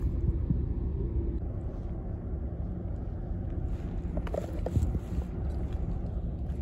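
Steady low outdoor rumble of harbour-side background noise, with a few faint short clicks about four to five seconds in.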